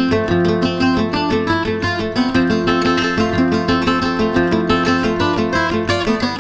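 Background music: plucked acoustic guitar played in a steady rhythm.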